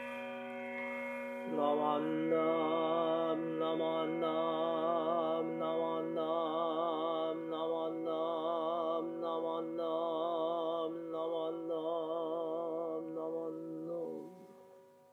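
A Jōdo Shinshū priest's voice chanting the morning service in long, wavering held notes over the lingering ring of a bowl bell. The voice comes in about a second and a half in, pauses briefly about every second, and fades out near the end, leaving the bell ringing faintly.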